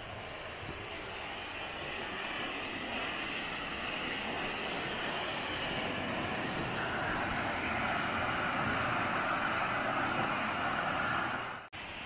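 Steady rush of water from a waterfall, growing gradually louder, then cutting off abruptly for a moment near the end.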